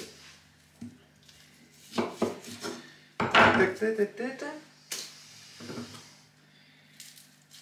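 Cooking pot, lid and metal utensils clattering: a few knocks about two seconds in, then a longer, louder clatter with some ringing, and two more knocks later on.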